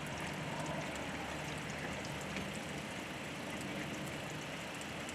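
Steady rain falling, an even hiss, with a faint low hum beneath it.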